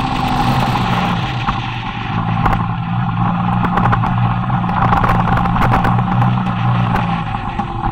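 Motorcycle engine running at fairly steady revs, heard with wind rushing over the onboard microphone and occasional crackles of wind buffeting.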